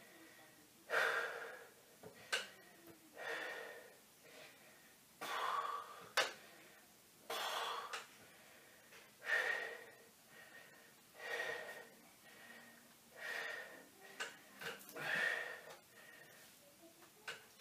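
A man breathing hard while holding a side plank, with a forceful breath about every two seconds, and a few short clicks between breaths.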